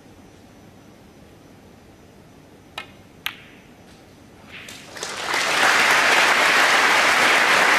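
Two sharp clicks half a second apart: a snooker cue striking the cue ball, then the cue ball hitting the black. About a second and a half later the crowd breaks into applause as the black is potted, swelling quickly and holding loud.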